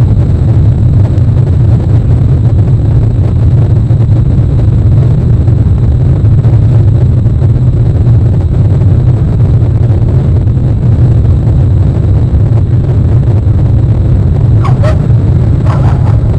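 A loud, steady low rumble on an outdoor nest-camera microphone, with two short calls about a second apart near the end.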